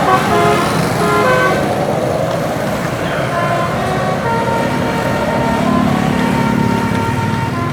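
A bus's multi-tone 'telolet' basuri horn playing a quick tune of short notes for about the first second and a half, then the bus's engine and road noise, with a steady tone coming in about halfway through.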